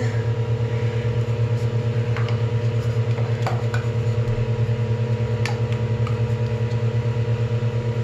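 Steady low electrical hum with a slight even pulsing, like a small motor running, with a few faint light clicks as clear plastic bird-cage cups are handled and wiped on the sink counter.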